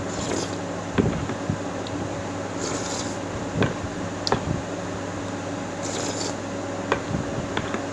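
Eating rice porridge with a metal spoon: a few short hissy slurps as spoonfuls are taken, and several light clicks of the spoon against the bowl, over a steady background hum.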